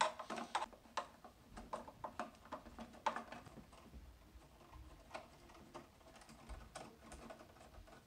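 Long T15 Torx driver working the screws out of a Macintosh Plus's plastic back case: a run of irregular light clicks and taps, with a few sharper ones.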